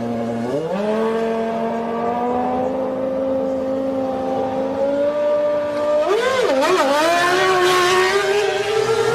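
Formula One car's V10 engine held at steady revs, stepping up in pitch about half a second in and holding there. Around six seconds in it is revved up and down a couple of times and then climbs steadily, with a harsh hiss over it.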